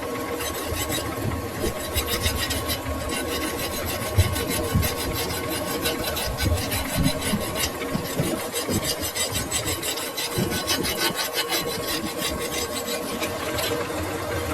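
Metal lathe running with a steady hum while a steel shaft is worked against metal, giving a fast, even rasping scrape.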